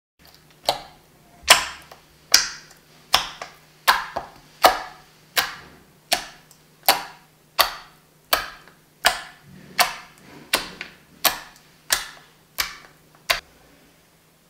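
Clear dish-soap water slime being squeezed and pressed by hand, giving a sharp wet pop or click about every three-quarters of a second, some eighteen in a row, that stop about a second before the end.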